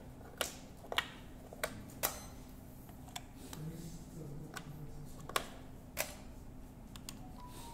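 Othello discs clicking on a plastic board as a move is played and the captured discs are flipped over, with a game-clock button pressed. Sharp single clicks come at an irregular pace, about nine of them.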